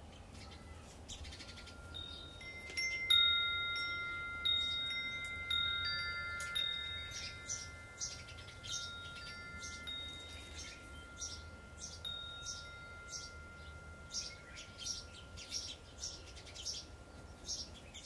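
Wind chimes ringing, struck again and again with long, lingering tones, the loudest strike about three seconds in. A bird chirps over them in short, high notes, repeating about twice a second and clearest in the second half.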